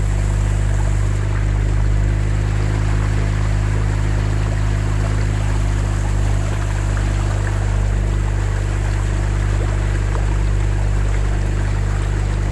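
Outboard motor of a small boat running at a steady cruise, a constant low drone, with water rushing past the hull.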